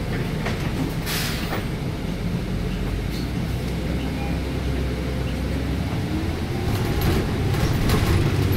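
Inside a city bus: the engine rumbles steadily at idle, with a short hiss of air about a second in and a faint rising whine near the end.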